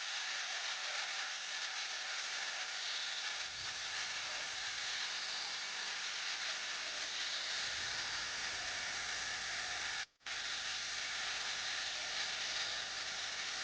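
Steady hiss with no distinct tones, cut off abruptly for a fraction of a second about ten seconds in before it resumes.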